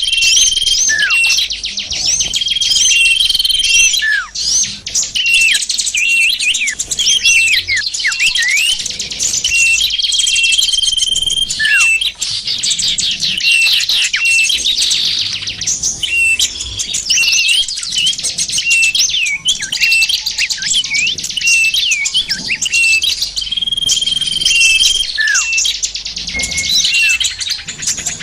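Bird-lure recording of many small songbirds calling at once: a dense, continuous twittering and chirping. A steady held whistle comes back a few times, and quick calls swoop downward in pitch.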